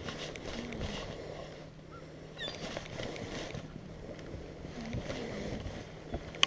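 Water lapping against a small fishing boat's hull, with wind on the microphone and a steady low hum.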